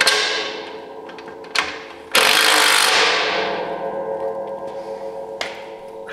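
Cordless driver tightening the bolts of a snowplow side plate in short bursts, the longest just after two seconds in, each followed by a ringing tone that fades slowly.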